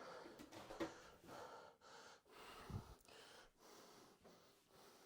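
Faint, quick breaths and gasps from a person, a string of short puffs about half a second each.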